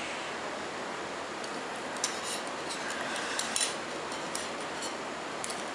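Metal double-pointed knitting needles clicking lightly against each other as stitches are worked: a few scattered soft ticks over a steady background hiss.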